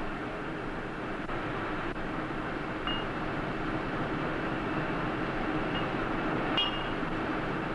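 Steady mechanical rumble of a tire-testing machine running, with a single click about six and a half seconds in.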